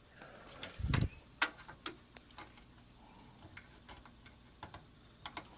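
Scattered sharp clicks and light taps of computer hardware being handled, with one dull thump about a second in.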